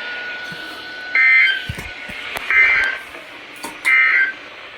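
Three short Emergency Alert System End-of-Message bursts of SAME data tones sound over a radio feed, each under half a second and about 1.3 s apart. They are the digital signal that the alert message has ended.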